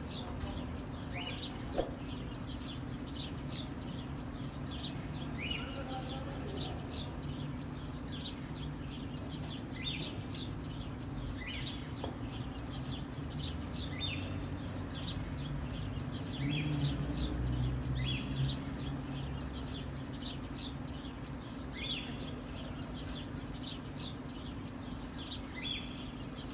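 Birds chirping: short, high chirps repeated every second or so, over a steady low hum.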